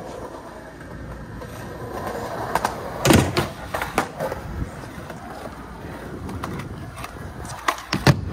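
Skateboard wheels rolling on concrete, broken by several sharp clacks of the board popping and landing. The loudest comes about three seconds in, and a few more come near the end.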